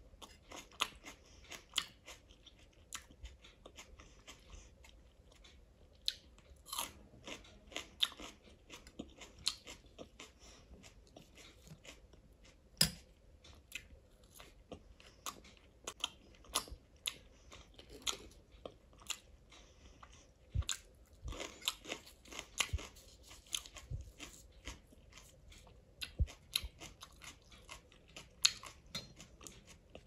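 Close-miked chewing and mouth sounds of a person eating rice, chole (chickpea curry) and puri by hand, with irregular wet clicks and smacks throughout.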